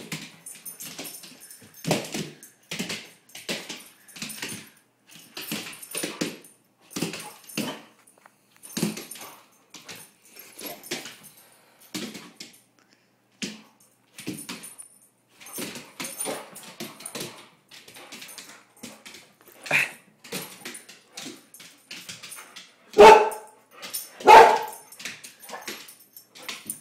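Boxer dog chasing a flashlight beam across a hard floor: a steady run of short scuffling and huffing noises, then two loud barks near the end, about a second and a half apart.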